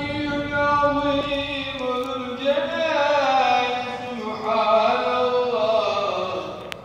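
A man chanting Islamic religious recitation in long held notes with ornamented slides, the pitch drifting slowly lower across the phrase. The chant stops just before the end.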